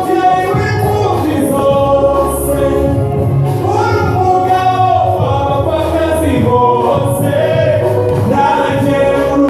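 A choir singing a gospel song in sustained voices, over a steady low bass line and a regular light percussion beat.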